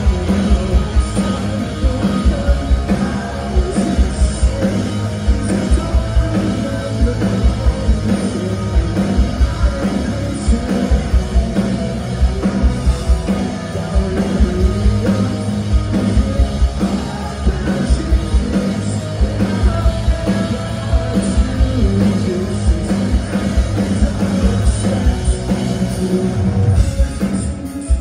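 Live rock band playing loud: electric guitars, bass and drum kit keeping a steady beat, with sung vocals.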